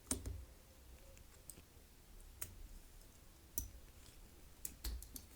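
Scattered sharp clicks and light taps of a Ganzo 2019S multitool being handled, about seven in all, the loudest right at the start.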